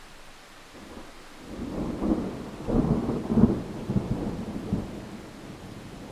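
A roll of thunder over steady rain: the rumble builds about a second and a half in, swells in several peaks through the middle, and dies away before the end while the rain hiss carries on.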